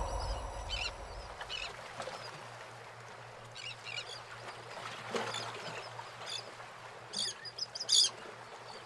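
Birds chirping: short, high calls repeated irregularly, with a few louder ones near the end. A low swell fades out during the first second or two.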